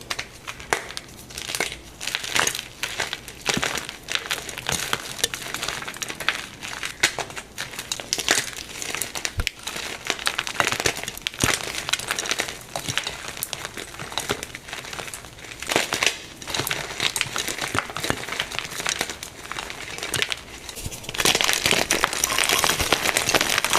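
Plain gym chalk blocks being crushed and crumbled, with dry crisp crackling and many sharp snaps. Near the end the crunching becomes denser and more continuous.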